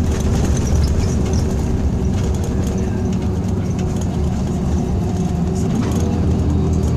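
Scania K340 coach running steadily on the road, heard from inside the cabin: a constant low engine drone with road noise and a steady hum.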